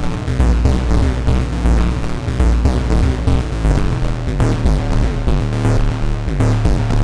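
Elektron Analog 4 analog synthesizer playing a sequenced pattern through feedback and neighbor-track oscillators: dense, pulsing low notes that step in pitch under a fast-modulated filter. In the second half, repeated falling pitch sweeps come in.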